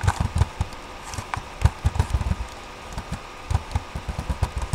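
Typing on a computer keyboard: an irregular run of dull keystroke thumps with faint clicks.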